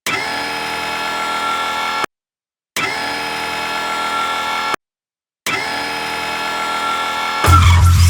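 Dental drill (high-speed handpiece) whining steadily in three identical bursts of about two seconds each, each cut off suddenly with silence between. Music starts near the end.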